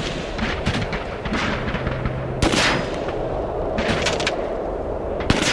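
Gunfire in several short rapid volleys, each a cluster of sharp cracks, the loudest volley about two and a half seconds in.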